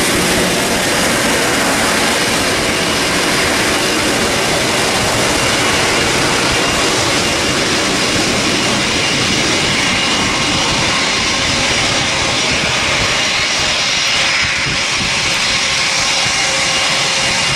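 Boeing 777 twin GE90 turbofan jet engines running as the airliner taxis and turns onto the runway: a steady rushing noise with a faint high whine.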